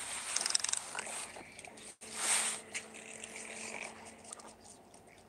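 Cormorant flapping its wings: a quick fluttering rustle in the first second, then a short whoosh of wingbeats about two seconds in.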